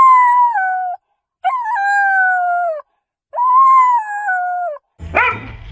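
Australian Shepherd puppy howling: three long, high howls of about a second and a half each, sliding slightly downward, the first already under way, with short silences between them. Near the end, short barks cut in.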